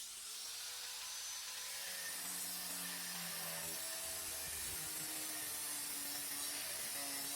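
Wood being cut, a steady hiss that starts suddenly.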